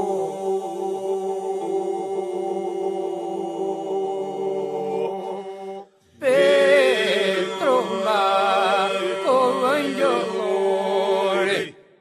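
Albanian Lab polyphonic folk song sung a cappella: voices hold a steady drone, break off briefly about halfway, then come back louder with a wavering, ornamented melody over the drone, stopping just before the end.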